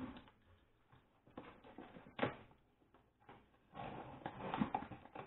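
A utility knife slitting the packing tape on a cardboard box, with cardboard scraping and rustling and a sharp knock a little over two seconds in.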